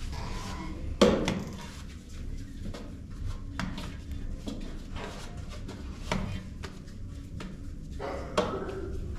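Short knocks and taps of a metal bowl being handled on a hard floor while dough is worked in it, the loudest knock about a second in, over a low steady hum.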